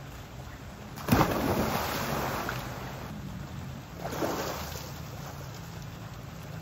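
A person jumping into a swimming pool: a loud splash about a second in that fades over a second or so, then a second, smaller splash of water about three seconds later.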